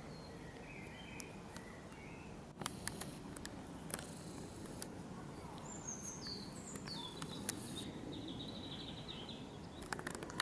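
Birds calling in short chirps and descending whistles over a low, steady background rumble, with a few sharp clicks around three to four seconds in.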